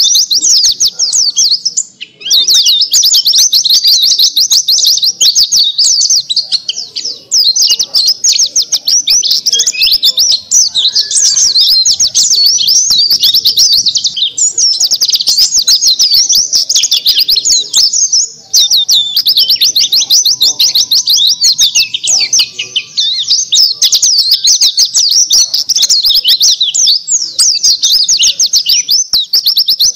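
Dakun bali white-eye (pleci) singing a long, fast, high-pitched twittering song almost without a break. It pauses briefly about 2, 7 and 18 seconds in.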